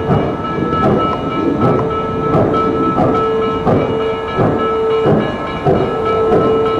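Baldwin 2-8-0 steam locomotive moving slowly under steam, its exhaust beating about once every 0.7 s over a steady whine and hiss.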